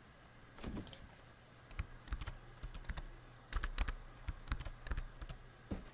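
Typing on a computer keyboard: a quiet run of irregular key clicks, sparse at first and busier from about two seconds in.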